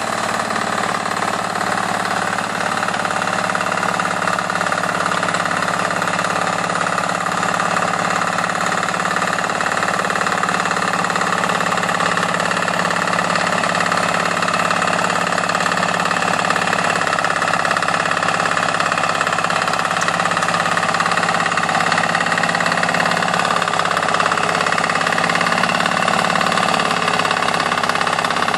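Acecowboy 186 walking tractor's single-cylinder diesel engine running steadily, driving a rotary plough through soil.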